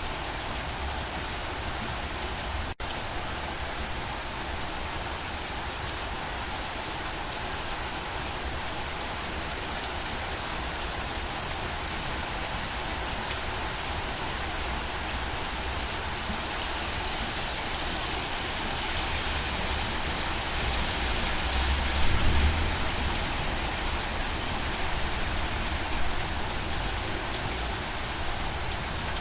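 Steady rain falling and pattering on surfaces, an even hiss. There is a brief louder low rumble about two-thirds of the way through and a split-second dropout near the start.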